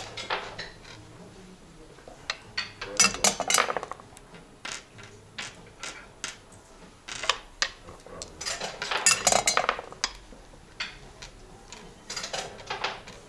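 Backgammon dice rolled and clattering on the board in several short rattling bursts.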